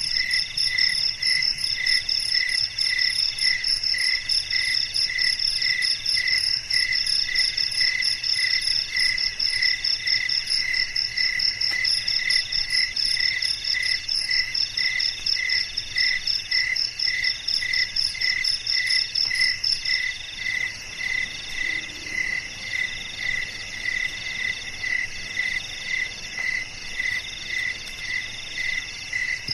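Night chorus of crickets and other insects: several overlapping chirping trains at different pitches, one pulsing a bit under twice a second. The highest, fast-trilling one stops about two-thirds of the way through.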